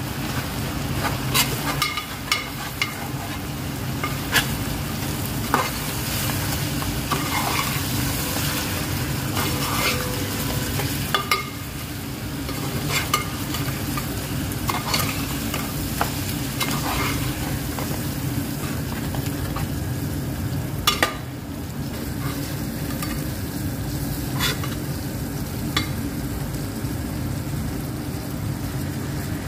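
Chicken pieces sizzling in hot oil in a metal pot while a metal spoon stirs them through the spice masala. The spoon scrapes and knocks against the pot now and then in sharp clicks.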